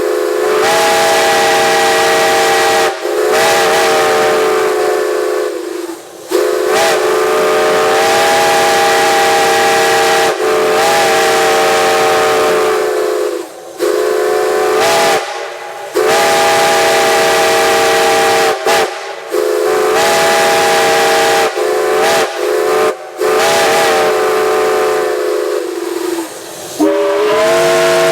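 Multi-note steam chime whistle blown in a run of long blasts and shorter toots, with short gaps between them. Each blast slides up slightly in pitch as it opens, with steam hissing around it.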